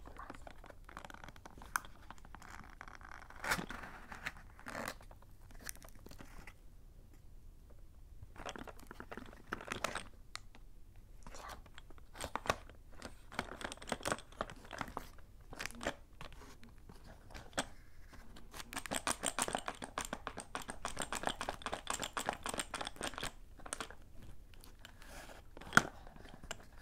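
A cardboard chalk box handled and opened close to the microphone: fingers scratch, tap and crinkle the paperboard, with tearing of the flap. A dense stretch of crackly rustling comes about two-thirds of the way in, and a single sharp tap near the end.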